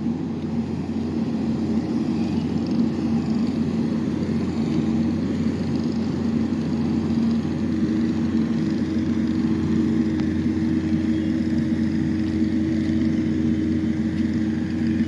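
An engine running steadily at a constant speed, a low even hum with a second tone joining about halfway through.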